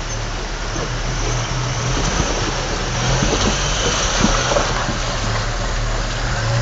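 A 4x4's engine running steadily through a river crossing, with rushing, splashing water and scattered knocks.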